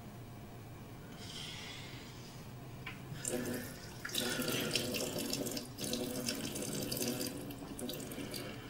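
Tap water running from a faucet into a washbasin, starting about three seconds in, with two brief breaks and easing off near the end.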